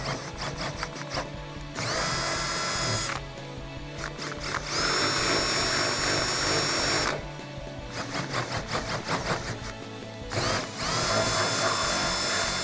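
Handheld power drill with a twist bit boring holes through a car's sheet-metal trunk lid, run three times: each run starts with a rising whine as the motor spins up, then holds a steady pitch until it stops.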